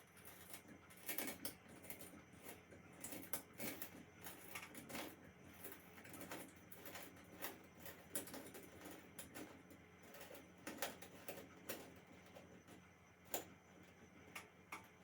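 Faint, irregular clicks and scrapes of vise grips turning a metal screw hook into a drilled hole in the wall.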